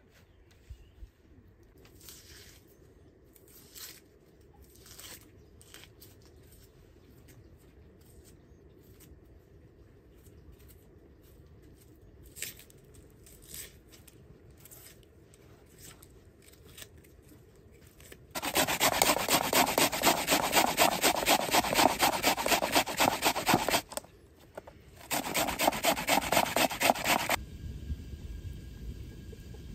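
A few light knocks, then a handsaw cutting through wood in two bouts of fast, rhythmic rasping strokes, a long one of about six seconds and a shorter one of about two.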